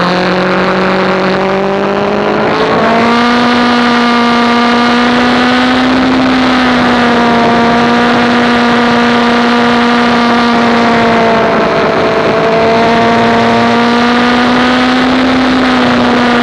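Sport motorcycle engine heard from on board, running at a steady moderate throttle under a constant rush of wind. About three seconds in, its pitch steps up once, then holds nearly level with small dips.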